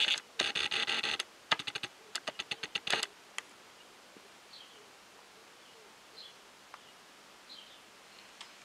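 Camera lens autofocus motor whirring and clicking in quick bursts for about three seconds while it hunts for focus, then a couple of single clicks. After that, only faint short bird chirps now and then.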